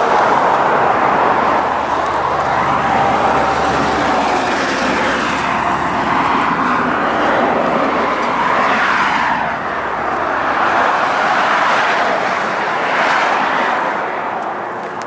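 Road traffic on a busy street: a steady rush of passing vehicles that swells and fades several times as cars go by.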